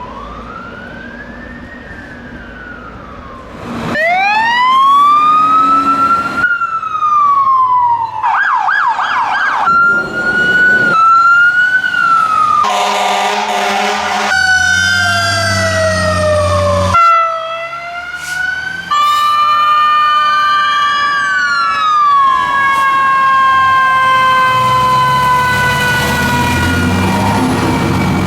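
Fire truck electronic sirens wailing, rising and falling, with a fast yelp about a third of the way in; several sirens overlap. A loud fire truck air horn blast sounds about halfway through.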